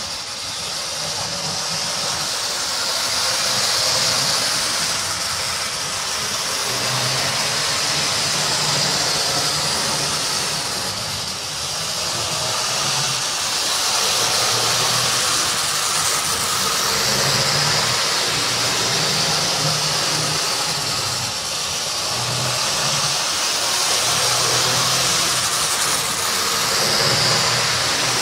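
HO-scale model train running on sectional track: the locomotive's small electric motor whirring and the wheels of the locomotive and freight cars rattling over the rails. The sound is steady, swelling and easing gently as the train goes around the oval.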